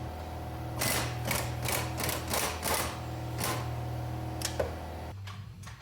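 Ratchet wrench turning nuts on the engine's motor mount, clicking in quick repeated strokes about three a second, with a steady low hum underneath that stops near the end.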